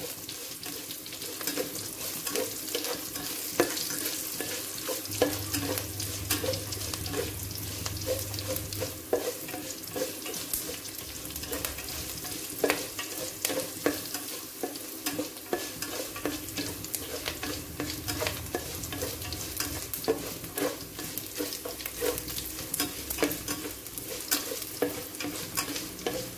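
Green chillies, ginger, garlic and curry leaves sizzling in hot coconut oil in a stainless steel pan, stirred with a spatula that scrapes and ticks against the metal, sautéing until they brown.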